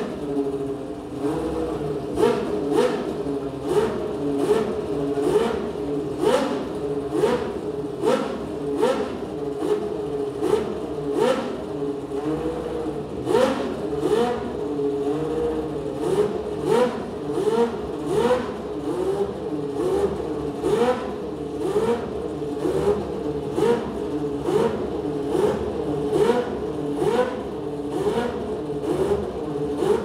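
Toyota TS010's naturally aspirated 3.5-litre V10 idling as it warms up, blipped on the throttle a little more than once a second. Each blip is a quick rise and fall in pitch over the steady idle.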